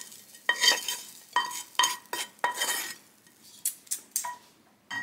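Wooden spatula scraping and knocking against a frying pan as the last of the cooked filling is scraped out onto a plate: a run of scrapes and clinks, each ringing briefly, then a louder knock at the end.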